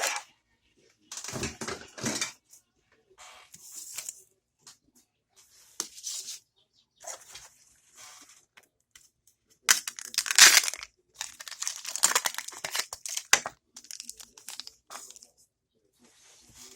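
Toy packaging being torn open and crinkled by hand, in short irregular bursts; the loudest tear comes about ten seconds in.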